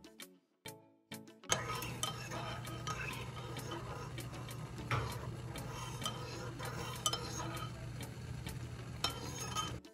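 Metal teaspoon stirring a milky drink in a ceramic mug, scraping and clinking against the sides and bottom. It starts about one and a half seconds in and stops abruptly just before the end.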